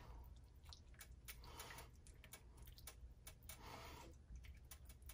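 Faint wet squishing as a silicone spatula stirs shredded chicken through thick enchilada sauce in a skillet, with light scattered clicks.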